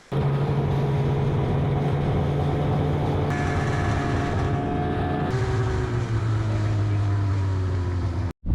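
Small engine running steadily. Its pitch drops a step about five seconds in and eases a little lower after that. The sound starts and cuts off abruptly.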